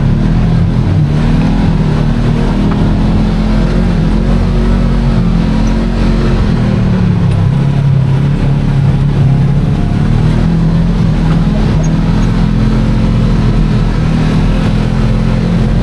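Kawasaki KRX 1000 side-by-side's parallel-twin engine running as it drives a rough trail, heard from inside the open cab. Its note sinks lower about six seconds in and rises again a few seconds later, over a steady low rumble.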